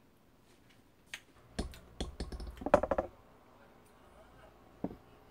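A quick run of sharp clicks and light knocks from about one to three seconds in, then a single click near the end: small kitchen utensils and a phone being handled while cooking.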